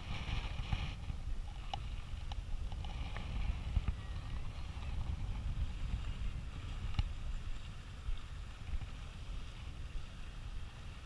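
Wind buffeting the camera microphone, a steady low rumble, with a few light clicks scattered through it.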